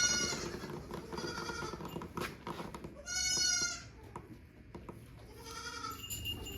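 Young goat kids bleating: about five separate high-pitched bleats, each under a second long, the loudest about three seconds in.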